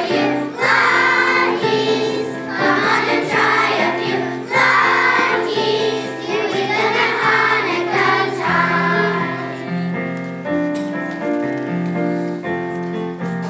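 Children's choir singing with instrumental accompaniment; the voices drop out about nine to ten seconds in and the accompaniment plays on alone.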